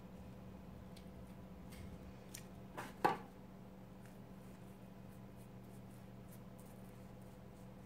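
Quiet crafting handling sounds: light ticks and paper rustles as a picture frame, comic paper and scissors are handled, with one louder clack about three seconds in. A steady low hum runs underneath.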